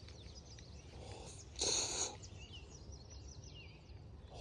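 Birds chirping, many short calls, with a brief loud rushing noise about a second and a half in.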